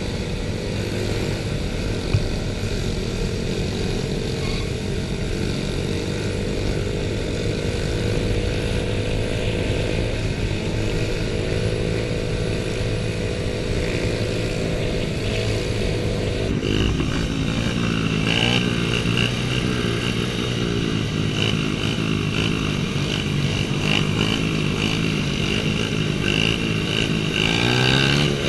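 Small pit bike engines running, their notes drifting up and down. About sixteen seconds in the sound changes abruptly to a different mix of engine notes that rise and fall.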